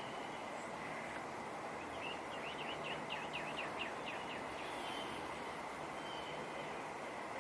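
Steady wind noise with a bird singing: a quick run of about ten chirps a couple of seconds in, and a few short whistled notes here and there.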